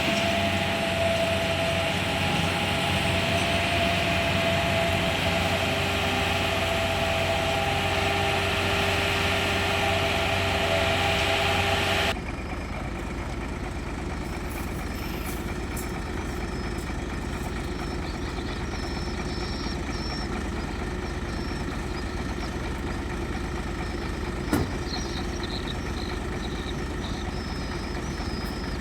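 Heavy diesel construction machinery running steadily, with a steady whine over the engine. About twelve seconds in the sound changes abruptly to a quieter, lower engine rumble, with a single sharp click about twenty-four seconds in.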